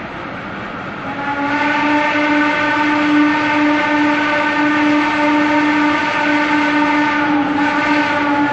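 Steam whistle of the Pacific Coast Shay #2, a geared logging steam locomotive, blowing one long blast as it approaches. The blast starts about a second in and holds steadily, wavering briefly near the end.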